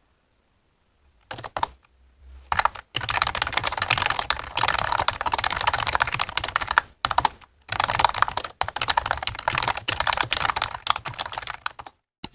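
Typing on a computer keyboard: after about a second of silence, a few keystrokes, then a long run of rapid keystrokes with a couple of brief pauses, stopping just before the end.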